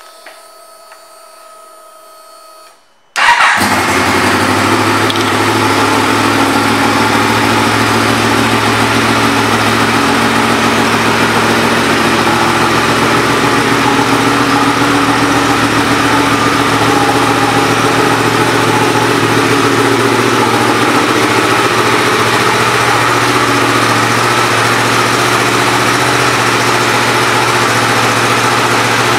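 2017 Yamaha FZ-10's 998 cc crossplane inline-four, fitted with an aftermarket exhaust, starting up: a faint steady whine, then about three seconds in the engine fires and settles straight into a loud, steady idle that holds to the end.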